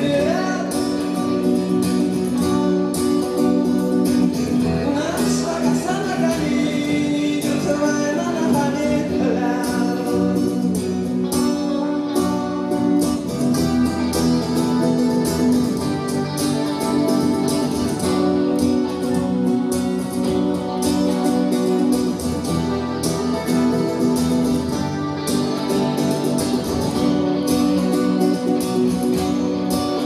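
Live rock band playing, with an acoustic-electric guitar and an electric guitar driving the song and singing over it for the first several seconds.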